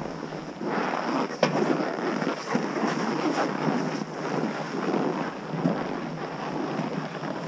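Snowboard sliding slowly over packed, chopped-up snow: an uneven scraping and crunching that surges and fades, with one sharp click about one and a half seconds in.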